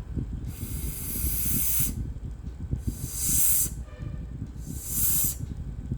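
A person hissing a sustained voiceless 's' sound three times, the first about a second and a half long and the next two shorter, made with the tongue tip at the lower teeth while air is released.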